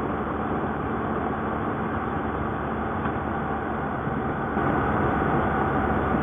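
Steady wind rush and road noise from a BMW R1200GS motorcycle riding on the highway, with the faint hum of its boxer-twin engine underneath; it gets slightly louder about four and a half seconds in.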